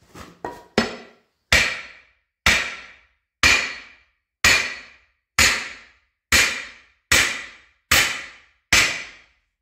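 Hammer blows on the steel lock ring of a Firestone RH-5 split-rim truck wheel, driving the ring onto the rim. Three light taps come first, then nine hard, ringing strikes about one a second.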